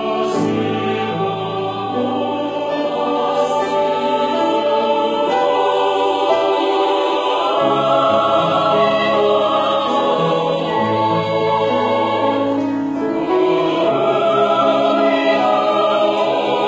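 Mixed choir of women's and men's voices singing held chords in a reverberant hall, with piano accompaniment, growing a little fuller about halfway through.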